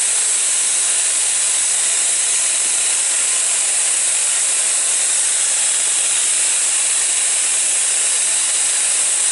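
Vacuum cleaner (hoover) running steadily, a constant high-pitched hiss.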